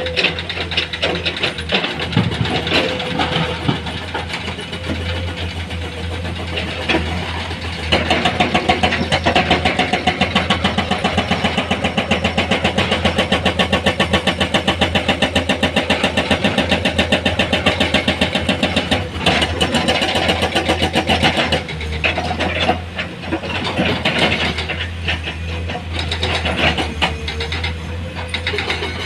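Heavy-equipment diesel engine running. From about eight seconds in it gets louder, with a rapid, even pulsing, and it eases back about two-thirds of the way through.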